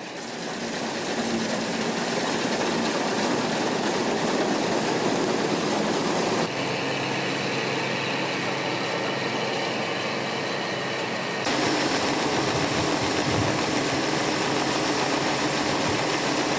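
New Holland TC5050 combine harvester running at work in the field: a steady drone of engine and threshing machinery, which shifts abruptly twice, about six and eleven seconds in.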